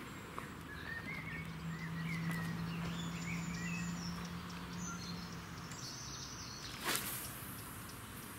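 Lakeside ambience with small birds chirping now and then. A steady low hum runs through the first half, and a short sharp noise stands out about seven seconds in.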